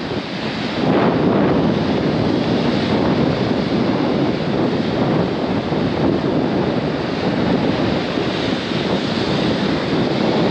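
Ocean surf breaking and washing up a sandy beach, with wind buffeting the microphone; it grows louder about a second in and then stays steady.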